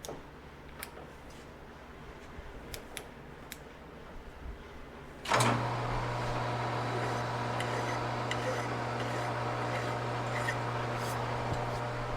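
A few light metal clicks from tool handling, then about five seconds in a metal lathe's electric motor switches on with a sudden jolt and runs with a steady hum.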